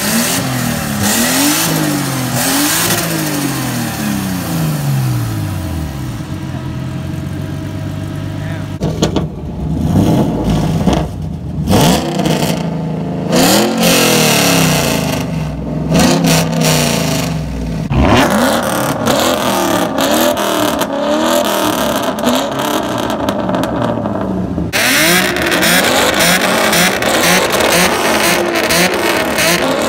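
Car engines revved over and over, the pitch climbing and dropping with each blip of the throttle. The sound changes abruptly several times, with different revving cars in turn.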